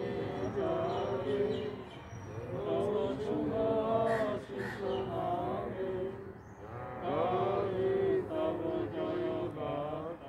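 A small group of adult voices singing together in unison, unaccompanied, in long held notes.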